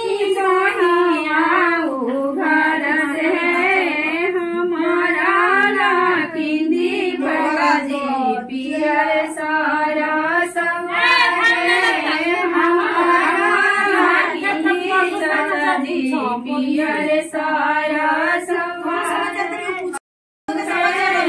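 A group of women singing a traditional wedding song together, with no instruments. The sound cuts out for about half a second near the end.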